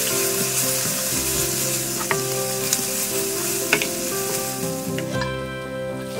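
Sliced red onion, ginger and garlic sizzling as they fry in oil in a nonstick wok, stirred with a spatula that clicks against the pan a few times. The sizzle drops away about five seconds in.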